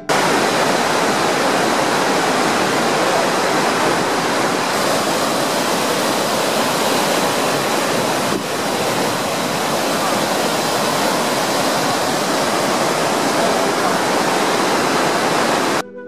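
Loud, steady rush of water pouring over Huangguoshu Waterfall and the stepped cascades of the Baishui River below it, with a brief dip in level about halfway through.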